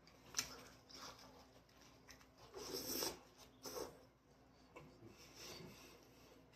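Faint eating sounds: chewing with a few scratchy, crunchy bursts, the loudest about three seconds in.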